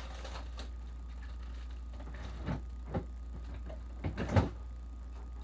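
A few knocks and clunks of things being moved about in an open refrigerator, the loudest about four and a half seconds in, over a steady low hum.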